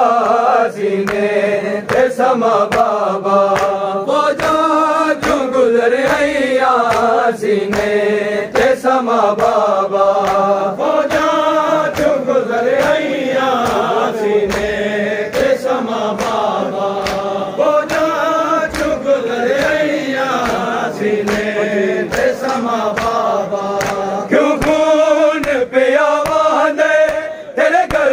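A group of men chanting a Shia mourning noha together in Urdu/Punjabi, with a steady beat of sharp slaps from hands striking bare chests in matam.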